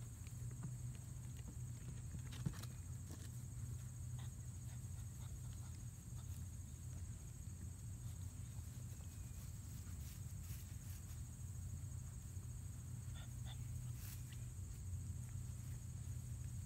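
Outdoor ambience with a steady low hum and a steady high drone, over which come scattered light taps and clicks from golden retriever puppies moving about on grass and a plastic wading pool, one sharper tap about two and a half seconds in.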